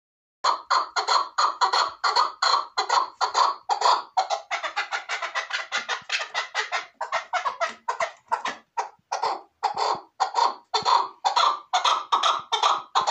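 Caged chukar partridge calling: a rapid, unbroken series of loud, sharp chuk notes, several a second, beginning about half a second in.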